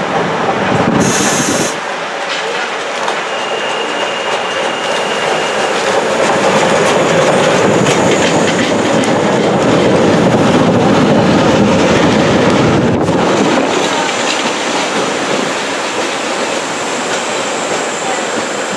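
London Underground 1962 Stock train running slowly past along the platform, its wheels clattering over the rail joints. It grows loudest halfway through as the cars go by close, with a short hiss about a second in and a thin high whine for a couple of seconds soon after.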